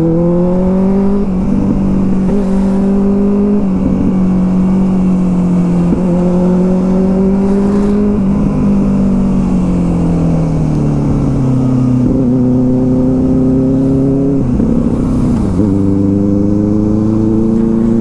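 Benelli TNT 600i's inline-four engine through an aftermarket IXIL exhaust, riding through the gears. The engine note climbs and breaks off at several gear changes, and it falls away steadily while slowing for a few seconds around the middle.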